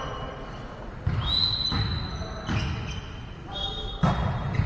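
A referee's whistle blown about a second in, one steady high blast lasting over a second. Near the end comes a sharp smack of a hand striking the volleyball on the serve.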